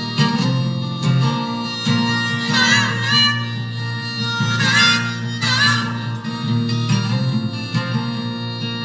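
Harmonica solo over strummed acoustic guitar in a live folk-rock song, with wavering, bent harmonica notes at several points.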